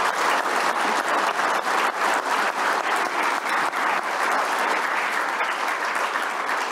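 Audience applause: many hands clapping steadily, fading out just after the end.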